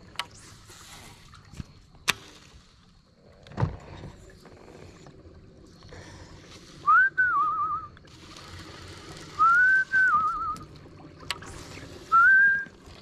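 Someone whistling a short phrase three times, close to the microphone: each time a rising note, held briefly, then a quick warble. Earlier come a couple of sharp clicks and a low thump.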